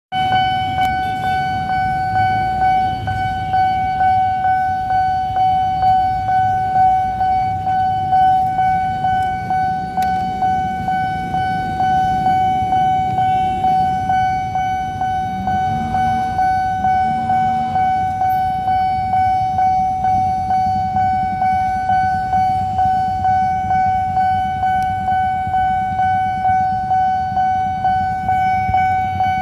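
Level-crossing warning alarm from the signal's loudspeaker: one steady high tone that pulses about twice a second without stopping, warning that a train is approaching and the barrier is down.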